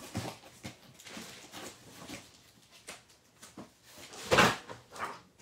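Craft supplies being handled and searched through on a desk: scattered small knocks and rustles, with one loud, short knock about four seconds in.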